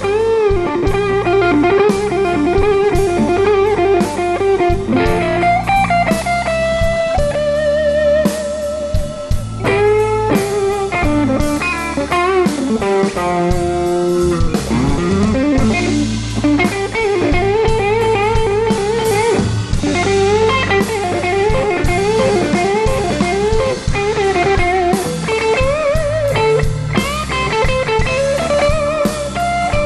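Live blues band playing an instrumental break: an electric guitar leads with bent, wavering notes over the rest of the band.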